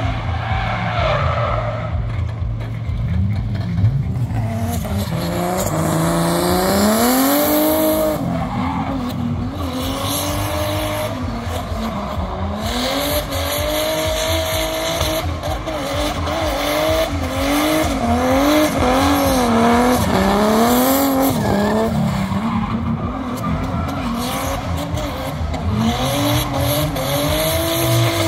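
Drift car engine revving hard and falling back again and again, its pitch rising and dropping every second or two, with tyres screeching as the car slides.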